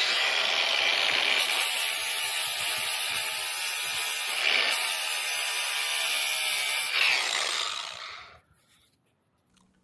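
Cordless angle grinder with a cutting disc running and cutting steel, a new pin in a tractor gear selector fork assembly being cut to size. The disc bites in twice with a brief let-up about halfway, then the grinder is released and spins down over about a second and a half.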